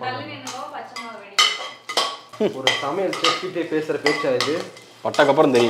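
A spoon clinking and scraping against a pressure cooker pot as spices are stirred in hot oil, in irregular sharp knocks. A voice is heard over it in the second half.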